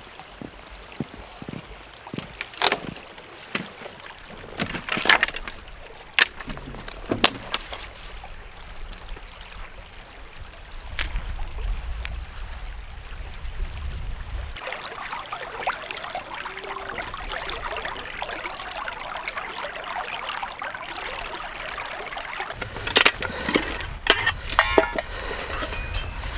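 Canoe being paddled with a double-bladed paddle: sharp knocks and splashes of the paddle strokes, a few seconds of low wind rumble on the microphone, then about seven seconds of flowing, rushing river water before more paddle knocks near the end.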